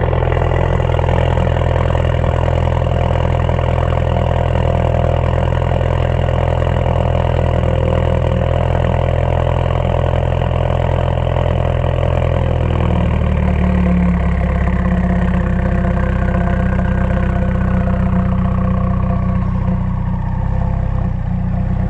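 Ford Focus RS's 2.3-litre turbocharged four-cylinder idling at the exhaust tips, warming up after a block-heated start. The idle note changes about thirteen seconds in and then eases slowly lower.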